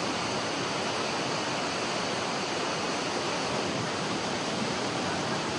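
Steady rushing of a river in flood: a fast, heavy torrent of water running without a break.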